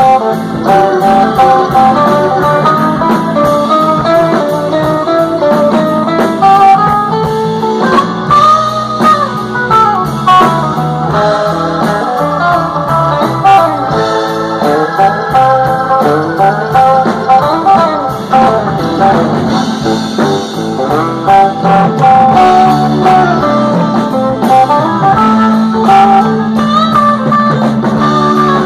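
Live rock band playing an instrumental passage: electric guitar lines with bending notes over keyboards, bass and drums.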